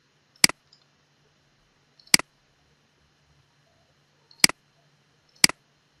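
Four single clicks of a computer mouse button, spaced unevenly over a few seconds, placing points of a polyline in a CAD program.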